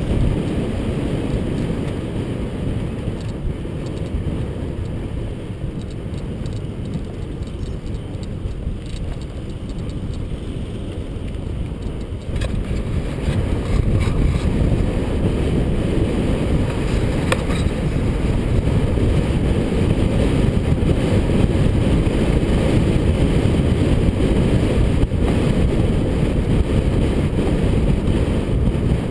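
Wind and road rumble on a helmet-mounted action camera while riding a mountain bike on tarmac: a steady low rush that gets louder about halfway through as the bike picks up speed.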